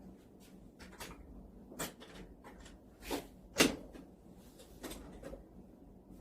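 Several short knocks and clicks, the loudest about three and a half seconds in.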